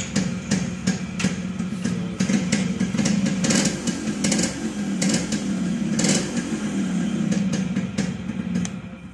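Rajdoot two-stroke motorcycle engine firing up suddenly and running with a rattly exhaust note, its revs rising to around 3,000 rpm and dropping back to a fast idle. It is switched off near the end and dies away.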